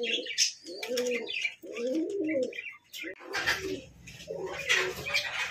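Domestic pigeons cooing in their cages: a run of about five rolling coos, roughly one a second, with higher chirps and rustling over them.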